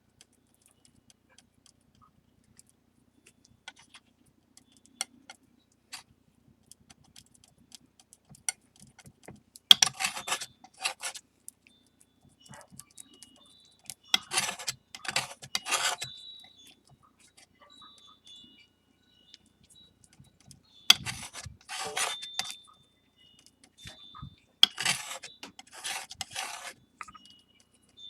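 Palette knife scraping and mixing a stiff paste of flour, water and base urushi lacquer on a tray. Scattered light taps come first, then four bunches of quick rasping strokes starting about ten seconds in.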